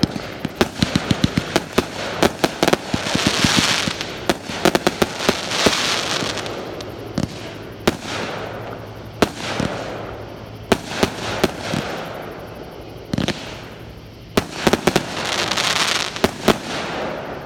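Fireworks going off close by: a fast string of sharp bangs and pops from aerial bursts, with several stretches of crackling hiss that last about a second each.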